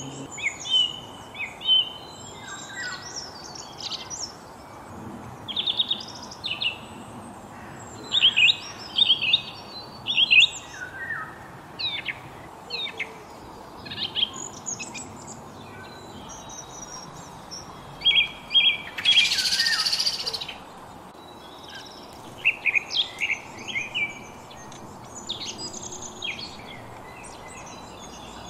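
Several songbirds chirping and trilling in short repeated phrases over a steady background hiss. A little past the middle, a louder hissing burst lasts about a second and a half.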